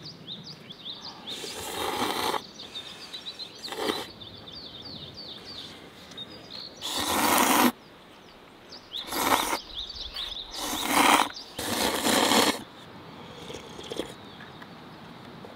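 A person slurping instant cup noodles: about six noisy slurps, the loudest about seven seconds in. Small birds chirp high in the background during the first few seconds.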